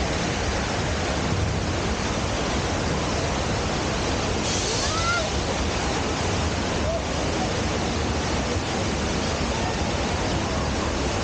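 Staged flood effect: a torrent of water pouring into a mock subway station, a steady rushing roar. A brief brighter hiss rises over it about four and a half seconds in.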